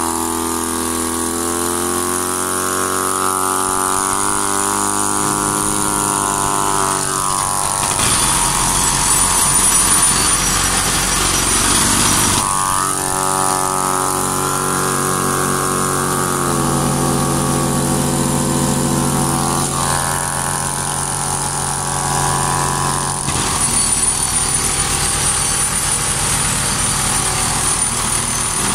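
Air-driven replica of Tesla's reciprocating mechanical oscillator, a steel piston machine on Teflon bearings with a magnetic spring, running on low-pressure compressed air. It makes a steady machine buzz whose pitch steps up and down several times. There are two stretches of louder, rougher noise, one near the middle and one toward the end.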